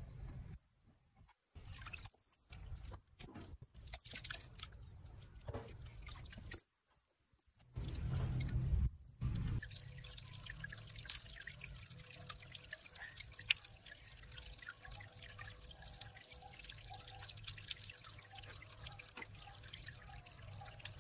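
Water sloshing and splashing in short pieces as fish are tipped into a small fish pond, then a steady trickle of water with many small drips.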